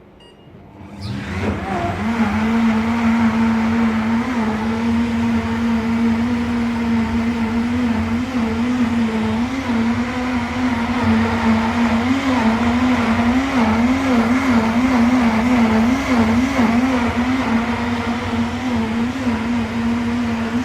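Greenis FGR-8830 power blender started at maximum speed (10): the motor spins up about a second in, then runs loud and steady with a strong hum over a whirring rush, its pitch wavering slightly midway.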